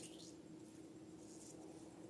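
Near silence: room tone with a faint steady hum, and a very faint soft hiss about one and a half seconds in.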